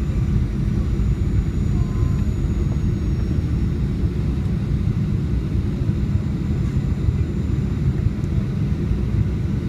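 Inside the cabin of a Boeing 737-800 on approach: a steady low rumble of airflow and the CFM56-7B engines.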